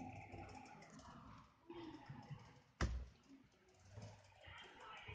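Faint handling noises and light clicks from toys and a plastic dish being moved close to the phone, with one sharp knock about three seconds in.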